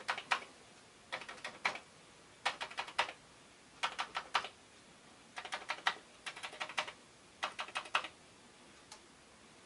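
Keys of a freshly cleaned and reassembled Commodore 64 keyboard being pressed one at a time to test that each responds. The keystrokes come as quick runs of about four or five clicks with short pauses between runs, and a single click near the end.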